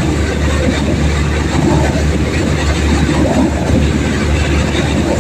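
Air compressor running steadily while flushing out a borewell, a loud unbroken mechanical noise with a deep rumble underneath.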